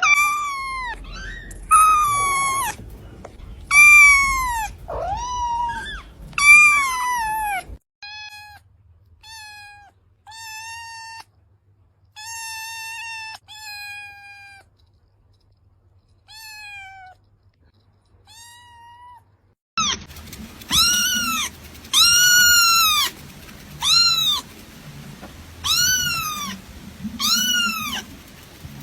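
Kitten meowing over and over, about one high meow a second. The meows are loud and falling in pitch at first, then shorter, quieter and flatter, then loud and arching again, with the background changing abruptly between these parts as if three recordings were joined.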